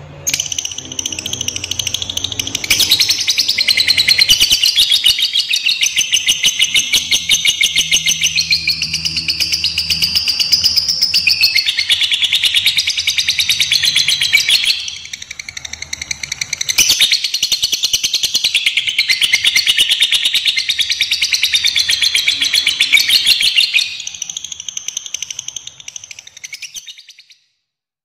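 Lovebird singing ngekek: a long, unbroken, rapid high-pitched chattering trill of fast repeated notes. It dips briefly about halfway, then carries on and fades out near the end.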